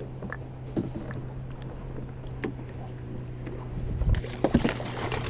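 Small fishing boat with a motor humming steadily, and scattered clicks and knocks of gear on the deck that grow busier and louder about four seconds in.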